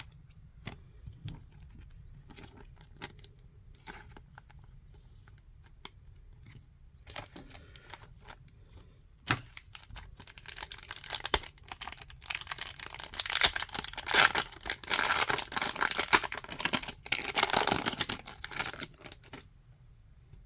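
Foil wrapper of a Topps Chrome trading-card pack being torn open and crinkled: a long run of loud crackling and tearing about halfway in, after several seconds of faint clicks from cards being handled.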